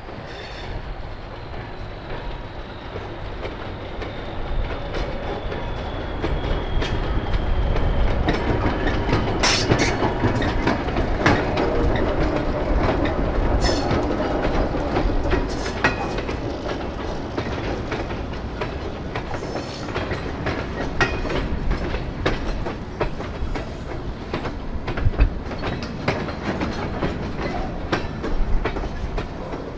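Freight train hauled by centercab diesel locomotives rolling past, its wheels clicking irregularly over rail joints. It grows louder over the first several seconds and then eases off a little while still passing.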